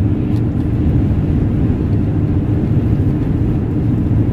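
Steady low rumble inside a car's cabin with the engine running, a constant hum over it.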